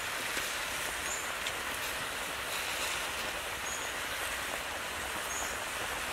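Steady outdoor background hiss, with a couple of faint clicks and a short high chirp every second or two.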